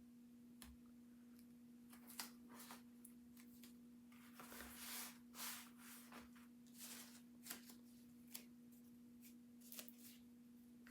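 Faint, scattered rustles and light ticks of an adhesive stencil transfer and its plastic backer sheet being handled and smoothed down, over a steady low hum.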